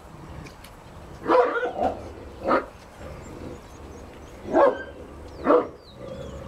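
Deep dog barks, four of them in two pairs, each pair about a second apart.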